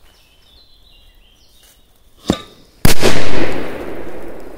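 A Cobra firecracker exploding: a short sharp crack about two seconds in, then about half a second later a very loud bang whose echo fades away over about a second and a half.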